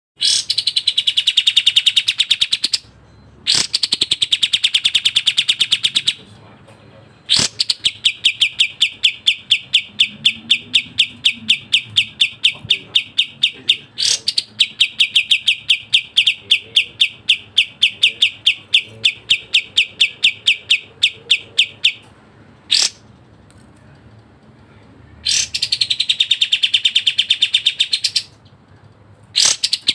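Kapas tembak bulbul singing its fast, tight song: bouts of rapid, evenly repeated high notes, several seconds each, broken by short pauses.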